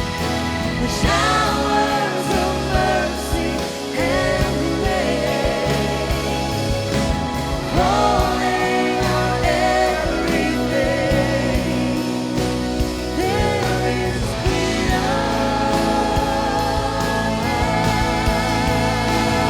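Contemporary worship song: a band with a steady bass and chords, and a singer's voice carrying the melody in phrases over it.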